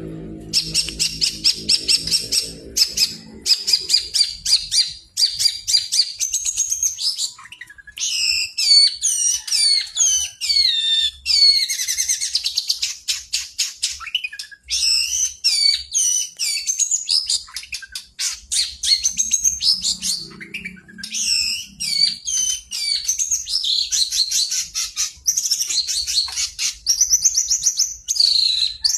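Long-tailed shrike (pentet) in full song: fast runs of rapid repeated chattering notes mixed with varied, gliding whistled phrases, almost without pause. A low hum runs under the first few seconds.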